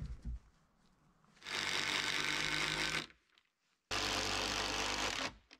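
Handheld cordless drill running in two even bursts of about a second and a half each, driving into a log brace pole.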